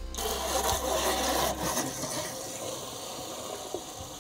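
Water rushing from the bare hose of a newly installed pull-out kitchen faucet, without its spray wand, into a stainless steel sink drain, flushing debris out of the faucet. The water starts at once, louder for the first second or two, then runs steadily.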